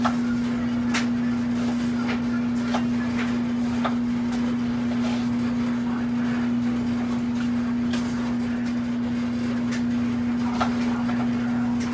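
A kitchen knife chopping an onion on a wooden cutting board: irregular, separate taps of the blade against the board. A steady low hum runs underneath.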